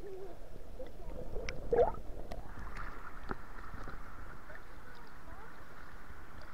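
Muffled water sounds through an action camera's waterproof case while it is held underwater, with a short, muffled, voice-like sound about two seconds in. About two and a half seconds in, the camera comes up at the surface and the sound turns to a steady, even wash of shallow water.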